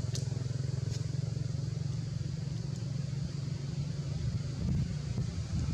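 A low, steady engine rumble, like a motor vehicle running out of sight, growing rougher and a little louder near the end, with a couple of faint ticks near the start.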